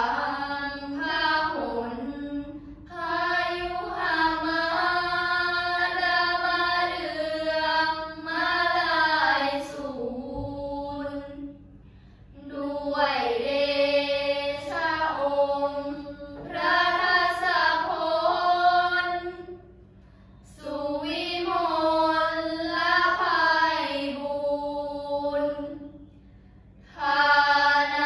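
A group of girls chanting Thai Buddhist prayers in unison, in drawn-out melodic phrases broken by short pauses for breath.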